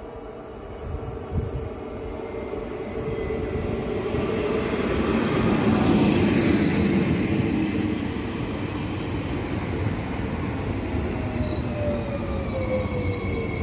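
Bombardier Regio 2N double-deck electric multiple unit running past close by, with a rumble of wheels on rail that swells to its loudest about halfway through. Near the end a whine falls in pitch and a high tone comes in.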